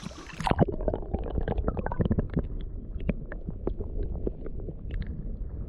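Muffled underwater sound of creek water being stirred as a smallmouth bass is released: a low rumble with many irregular small clicks and gurgles.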